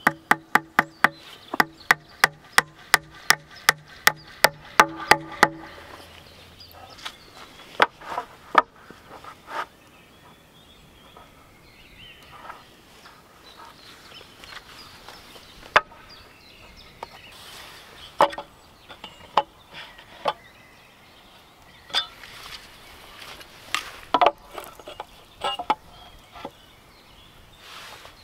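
Hammer driving nails into the corner of a wooden formwork board, about three even blows a second, each with a ringing pitch, for the first five seconds or so. After that come scattered single knocks and clatter of wood and tools.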